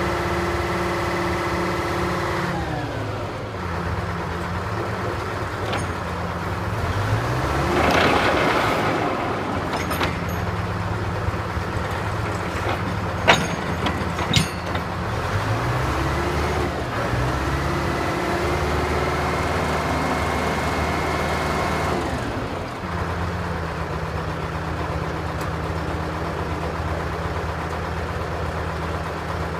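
Texoma 700 drill rig's engine running, its speed dropping a few seconds in, rising again partway through and dropping back near the end. A rushing noise swells briefly about eight seconds in, and two sharp knocks come about a second apart near the middle.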